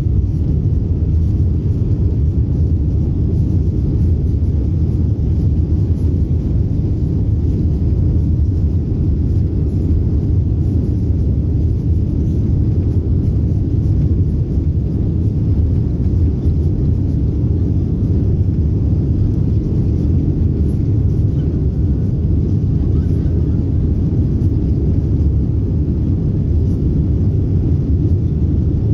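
Steady low rumble of a jet airliner heard from inside the cabin as it taxis, with no change in pitch or level.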